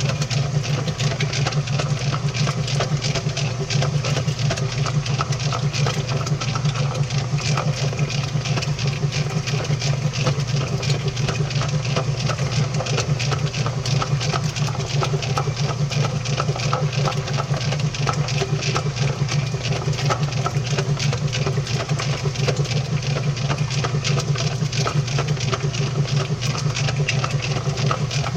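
Washing machine running, heard from inside its drum through a GoPro Hero 6's built-in microphone: a steady low hum with a dense, fast rattle over it.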